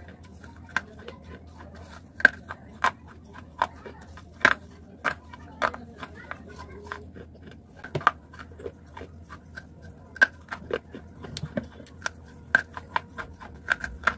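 A person biting and chewing hard chunks of baked clay, giving a dense, irregular run of sharp, dry crunches one after another.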